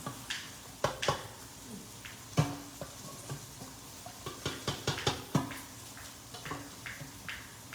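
Irregular clinks and knocks of utensils against pots and dishes, a couple of dozen sharp strikes, a few of them ringing briefly.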